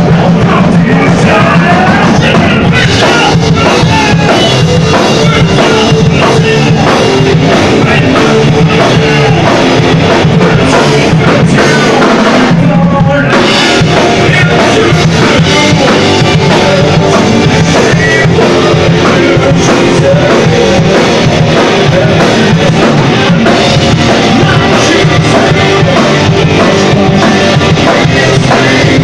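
Live rock band playing loud: electric guitars, bass and drum kit with singing over them. The sound briefly thins out about halfway through before the full band carries on.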